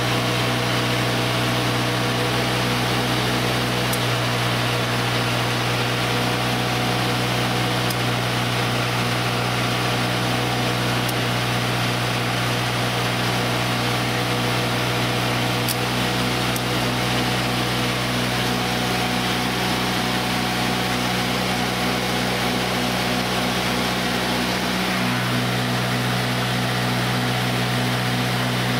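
Greenhouse unit heaters' 1-horsepower blower motors and fans running with a steady electric hum, loaded onto the backup generator. The low hum shifts slightly about 25 seconds in.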